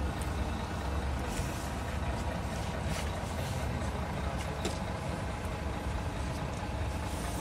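Tractor-trailer truck's diesel engine running at low speed while the rig creeps forward, a steady low rumble with a few short faint hisses.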